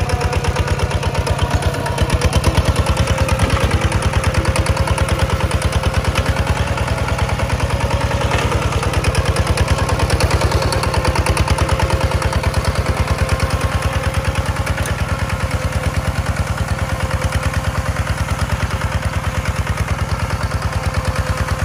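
Kubota walk-behind tractor's single-cylinder diesel engine chugging at a steady speed under load while it pulls a plough through dry soil.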